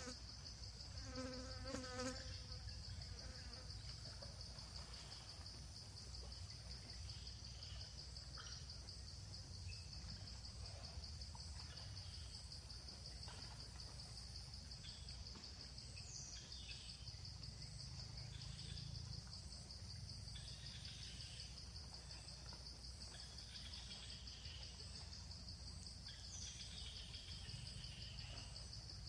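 Insects trilling steadily in a continuous high chorus, with a short pitched call about a second in.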